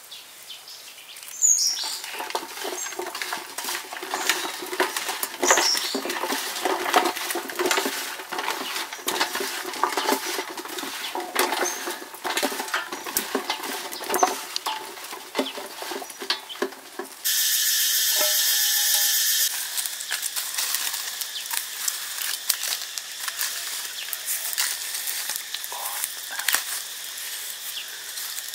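Hands tossing chunks of cut vegetables, chillies and cherry tomatoes in a stainless steel tray, a long run of soft clicks and knocks of the pieces against the metal. Past the middle comes a loud steady high hiss for about two seconds, then a fainter hiss with light crackles as a stick pokes glowing charcoal.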